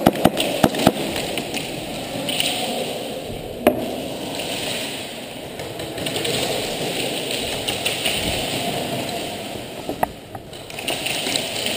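Sharp snaps of airsoft gunfire: a quick run of about five within the first second, then single shots about four seconds in and near the end. Under them, the steady rustle of a player's gear and footsteps on concrete as he moves.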